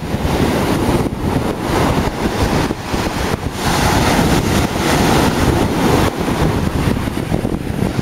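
Strong gusty wind buffeting the microphone over the steady noise of heavy storm surf breaking on the shore.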